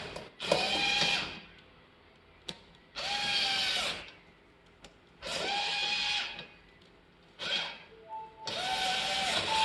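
Power drill driving screws in four short bursts of about a second each, its motor whine rising and falling with each burst, with small clicks in between.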